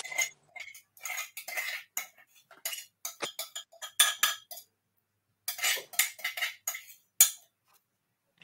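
A spoon scraping and clinking against cookware in short, irregular strokes, as a cheese sauce is spooned out.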